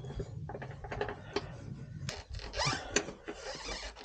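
A wrench working a rusty jounce bumper bolt: scattered metal clicks and a short scraping rattle near the end. The bolt is spinning in place instead of loosening.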